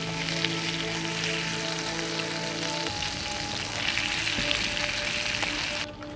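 Food frying in a small pan over a campfire: a steady sizzle while the pieces are turned with a utensil. It cuts off suddenly near the end.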